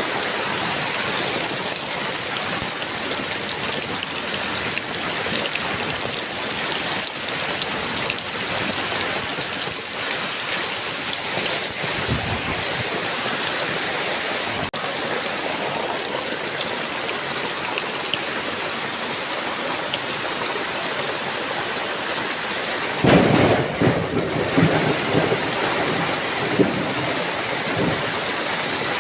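Heavy rain falling steadily, with a thunderclap breaking in near the end and rumbling for a few seconds.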